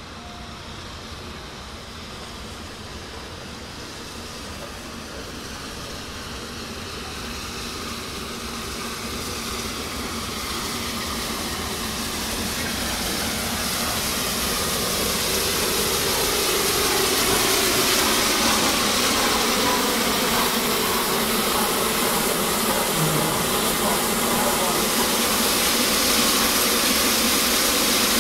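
Steam locomotive 60163 Tornado, a Peppercorn A1 Pacific, running slowly in with its train. A steady hiss of steam grows louder as it approaches and comes alongside, with faint tones falling in pitch as it slows.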